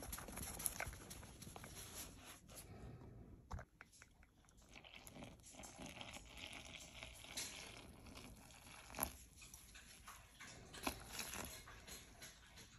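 Faint rustling and crackling of flour tipped from a paper bag into a stainless steel bowl, then a trickle of water poured onto the flour.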